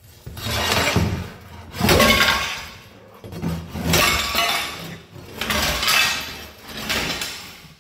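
A long-handled steel floor scraper is driven under ceramic floor tiles in about five rough strokes, grating over the mortar bed as the tiles crack and break loose with a clinking, breaking sound.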